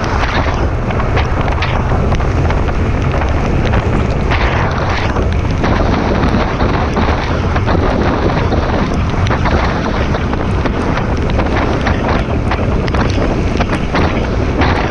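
Wind rushing over the microphone of a motorcycle-mounted camera at road speed: a loud, steady buffeting rush, with a low rumble from the bike under it.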